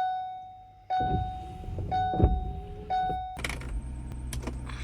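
A van's warning chime dings four times, about once a second, with a thump between. About three and a half seconds in, the engine starts and runs steadily.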